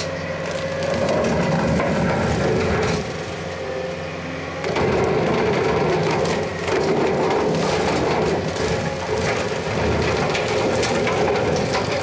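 Skid-steer-mounted hydraulic direct-drive brush mower running on high flow with a steady whine over the skid steer's engine, as its blades crack and splinter popple (aspen) saplings and small trees. The sound eases slightly around three seconds in, then comes back up as it bites into more wood.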